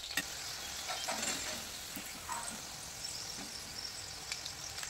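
Batter-coated capsicum pieces deep-frying in hot oil in a steel kadhai, a steady sizzle, with a few sharp clicks of the perforated steel skimmer against the pan.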